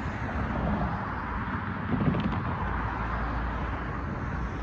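Road traffic: cars driving past over the crossing, with steady wind rumble on the microphone.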